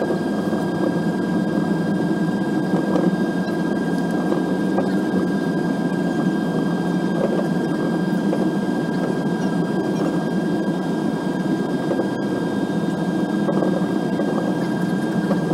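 Cabin noise inside an Airbus A320-family jet airliner taxiing: a steady rumble of the engines at low power and the cabin air, with a few faint steady whining tones above it.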